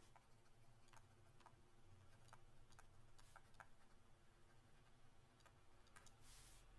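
Near silence with faint, irregular clicks of a stylus tapping and dragging on a writing tablet as handwriting goes on.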